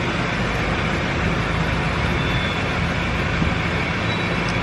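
Steady low rumble of a moving hayride wagon, with a droning engine.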